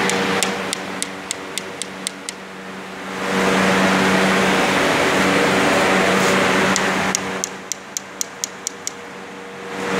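Steady mechanical hum of workshop machinery with a rushing noise that swells up in the middle, and two runs of light, evenly spaced ticks, about four a second, near the start and again near the end.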